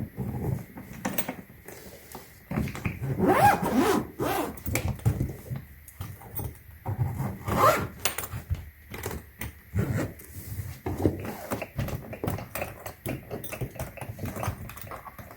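Hardshell suitcase being handled: zipper runs and scraping, with many small clicks and knocks of plastic parts.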